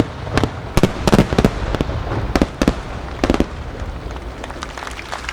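Aerial firework shells bursting in a rapid barrage of sharp bangs over about three and a half seconds, thinning out into a fading low rumble.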